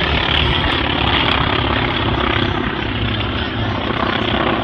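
Propeller engines of two aerobatic planes droning steadily as they climb together in formation.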